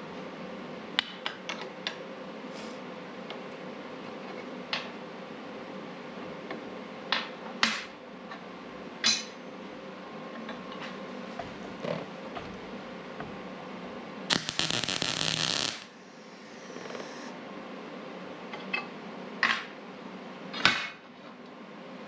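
Steel parts being handled on a workbench, clinking and knocking sharply now and then over a steady background hum. About two-thirds of the way through, a loud crackling hiss lasts about a second and a half.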